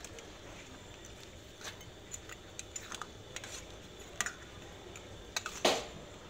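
A metal ladle clinking and scraping against a metal cooking pot while giant river prawns are turned over in it: a scattering of light clicks, with one louder knock near the end.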